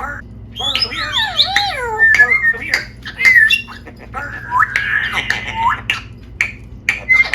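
Pet parrot calling: a loud run of squawks and gliding whistles, with a harsher squawk about two thirds of the way through and sharp clicks in between.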